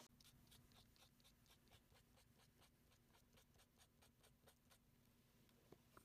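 Faint scratching of a fine-tip felt marker on paper in short, quick hatching strokes, about four a second, stopping a little before the end.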